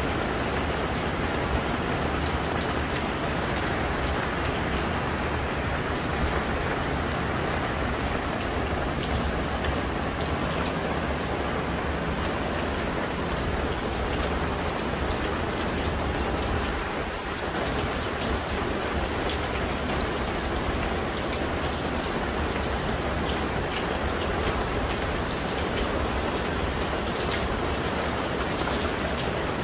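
Steady heavy rain falling onto wet pavement and plants, with a dense patter of close drops.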